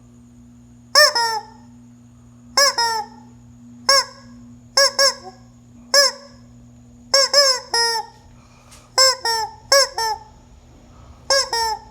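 Hen squawking loudly over and over, short honking calls in groups of one to three about every second or so.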